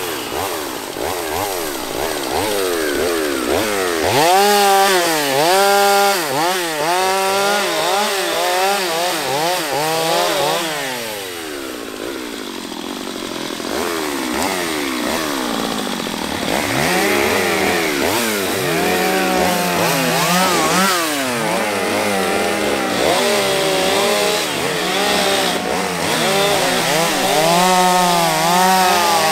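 Stihl MS231 two-stroke chainsaw revving up and down over and over as it cuts branches off felled pine trunks, falling back toward idle between cuts. The revving eases off for a few seconds around the middle, then picks up again.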